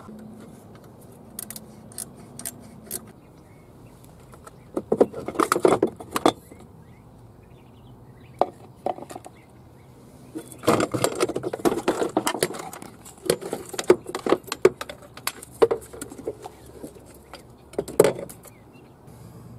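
Metal clinking and rattling from hand tools and the wiper motor's linkage as the wiper motor is unbolted and lifted out, coming in irregular bursts a few seconds apart with single sharp clicks between, and one loud click near the end.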